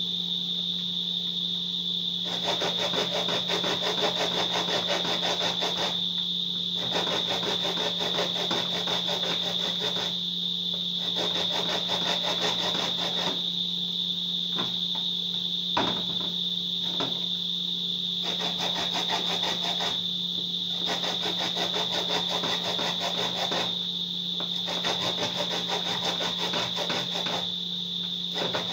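Fresh corn being grated off the cob on a metal hand grater into a bowl: runs of quick rasping strokes with short pauses between them. A steady high-pitched whine runs underneath.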